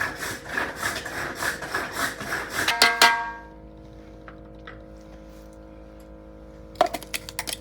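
Rapid, rhythmic kitchen utensil strikes, about five a second, ending about three seconds in with a louder ringing metallic clang. A few sharp taps return near the end.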